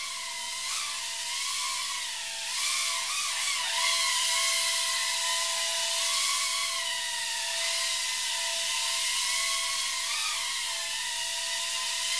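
Tiny whoop quadcopter's motors and propellers whining in flight, the pitch wavering up and down with the throttle, over a steady lower tone.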